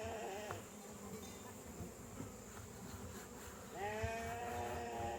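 A goat bleating twice: one long, steady call ends about half a second in, and another starts near the end.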